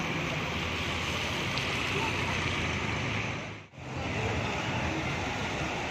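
Steady hiss of rain and traffic on a wet road, with a low engine hum underneath. The sound drops out briefly about three and a half seconds in, then the same hiss returns.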